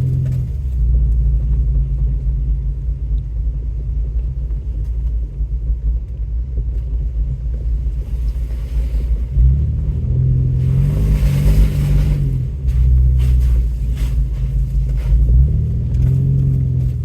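Off-road 4x4's engine running at low trail speed, its revs rising and falling around the middle and again near the end, with knocks and rattles from the body and suspension over rough ground. A rushing hiss rises twice in the middle.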